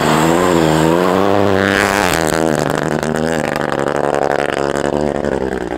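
Ford Fiesta rally car's engine at high revs as it slides through a snowy corner, its note rising and dipping with throttle and gear changes, then fading as the car pulls away near the end.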